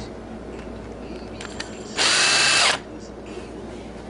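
Cordless drill/driver running in one short burst of under a second, about halfway through, driving a screw through a T-Lock security hanger plate into a wooden picture frame.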